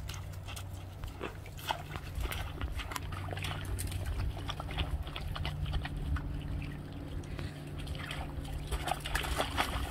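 Dogs walking on thin, wet river ice: scattered clicks and crunches of paws on the ice, over a steady low hum.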